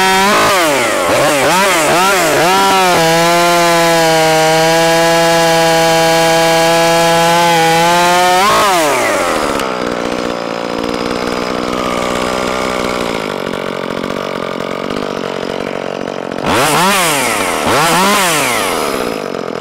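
Echo CS2511T two-stroke top-handle chainsaw, fitted with a straight pipe, running at high revs: a few quick throttle blips, then held wide open for several seconds. About eight and a half seconds in it drops to a high idle, and near the end it is revved up and back down twice, showing good trigger response after a carburettor retune.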